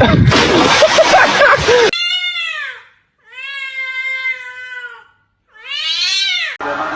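A domestic cat meowing three times: long, drawn-out calls that rise and fall in pitch. They come after about two seconds of loud, mixed noise.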